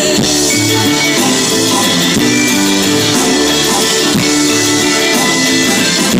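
Live rock band playing an instrumental passage with no singing: electric guitars over a bass line that steps between held notes, loud and steady.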